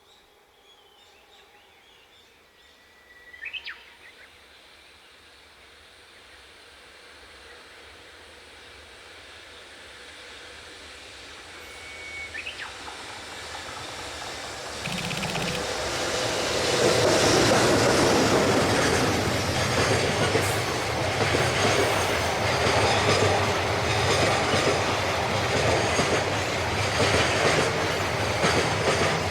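Freight train approaching from a distance and growing steadily louder, with the electric locomotive passing about halfway through. A long string of freight wagons follows, clattering over the rail joints.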